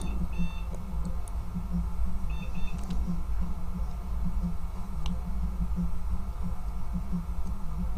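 Compaq ProLinea 4/50 486 desktop PC running with a steady low hum that pulses unevenly. Two short, faint beeps come about two seconds apart near the start, as the BIOS reports its 162 'System Options Not Set' error caused by the dead CMOS battery.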